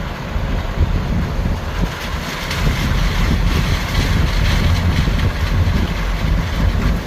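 Wind buffeting the microphone over the low rumble of a vehicle crossing a bridge, with a steady rushing noise that grows louder a few seconds in.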